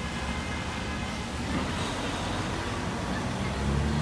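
Steady city street traffic noise: cars running on the road alongside, with a low engine hum growing louder near the end.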